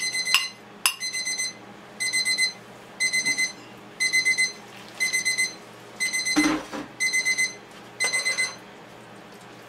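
Electronic timer beeping in quick groups of four, about once a second, stopping about eight and a half seconds in. A metal spoon clinks and scrapes in the pan now and then.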